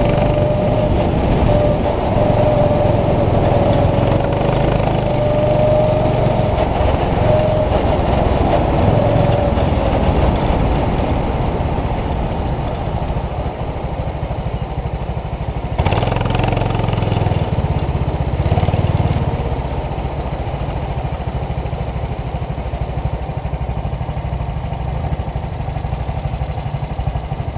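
Go-kart engine running as the kart slows down. The engine note eases off and settles into a quieter idle over the last several seconds, with a brief loud noise about sixteen seconds in.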